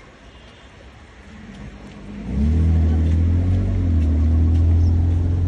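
A motor vehicle's engine running close by, a low steady hum. It builds from about a second in, its pitch sliding up, then turns suddenly loud just after two seconds and holds steady.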